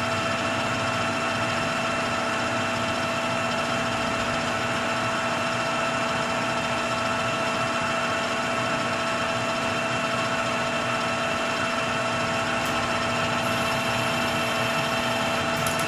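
Metal lathe running at a steady speed, a constant hum with a steady whine, while a 60-degree threading tool cuts a 1/2-28 thread on a steel rifle barrel's muzzle.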